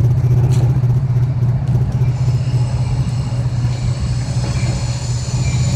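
Steady low engine drone, with a faint high whine joining about two seconds in.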